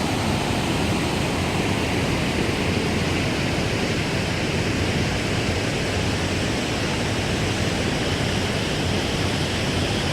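Large waterfall pouring steadily, a constant rushing roar of falling water.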